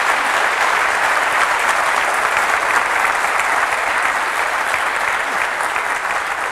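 Audience applauding steadily, the clapping easing slightly near the end.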